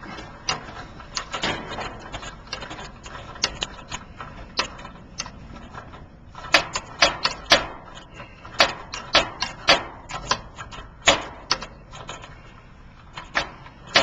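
Yellow Jacket ratchet wrench clicking as it is worked back and forth on the hex stem of an air-conditioner service valve, turning the valve open. The clicks are sparse and soft at first, then sharper and quicker from about halfway, a few a second.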